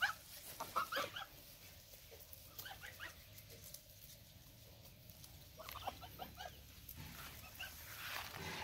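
Geese grazing, pecking and tearing at grass with faint rustling, and a few soft short calls about a second in and again around six seconds.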